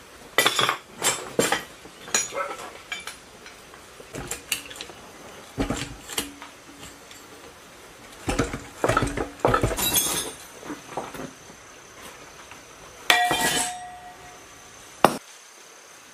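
Hammer blows on the metal of an old diesel engine by its flywheel: a dozen or so irregular metallic clanks, some left ringing. The loudest come in a cluster a little past the middle, with one sharp last strike near the end.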